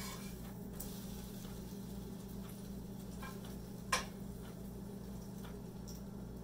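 Quiet kitchen sound of French toast cooking at the stove: a steady low hum, with a few faint clicks of a metal spatula against the frying pan, the sharpest about four seconds in.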